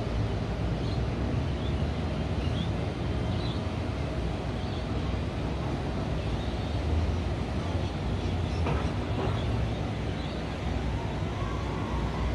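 Steady city night ambience: a low, even hum of traffic, with faint high chirps every second or so and a faint tone that rises slightly near the end.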